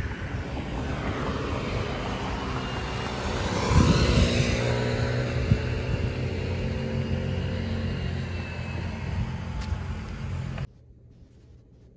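Outdoor traffic ambience with wind rumbling on the microphone. A motor vehicle passes about four seconds in, its sound swelling and then falling away in pitch. Near the end the sound cuts off abruptly to quiet room tone.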